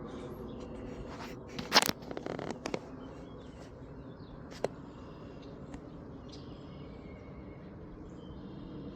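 Brief rustling and scraping close to the microphone, loudest about two seconds in, with a single sharp click near the middle, over a steady low outdoor background.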